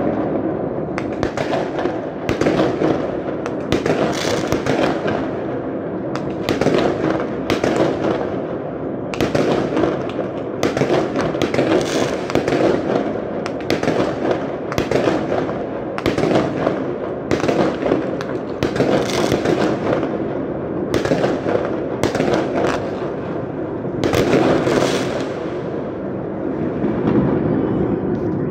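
Fireworks display: a continuous barrage of bangs and crackling, with many shells going off in quick succession and no pause.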